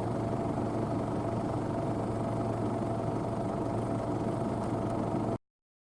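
Claas Medion 310 combine harvester running with a steady drone, which cuts off abruptly about five seconds in.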